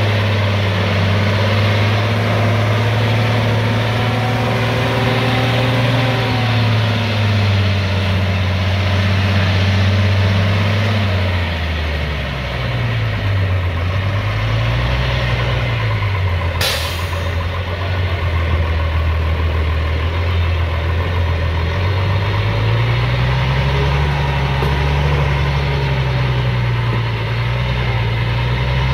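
Shaktiman (MAN 415) military truck's diesel engine running after a cold start from years of standing: steady at first, its speed dips and wavers about twelve seconds in, then climbs again near the end. One short sharp burst sounds about halfway through.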